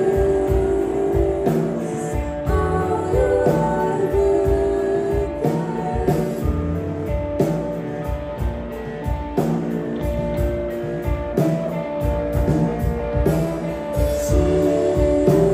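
A live rock band playing loud, amplified electric guitars over a drum kit, the notes held and ringing over a steady beat.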